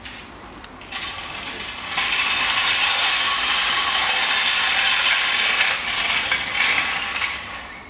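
Loud, continuous mechanical ratcheting rattle. It builds about a second in, holds steady for about five seconds, then fades near the end.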